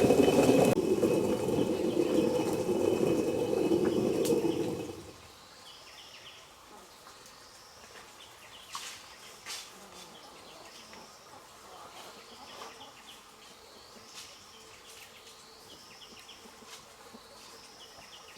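An old corn mill grinding with a steady rumble for about five seconds, then stopping suddenly. After that it is quiet but for a faint, high chirping call repeated roughly once a second.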